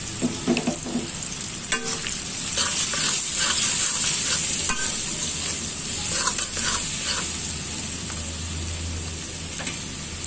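Sliced onions, green chillies and garlic sizzling steadily in hot oil in a karahi, with a spatula scraping and clicking against the pan at intervals as turmeric is stirred through the frying onions.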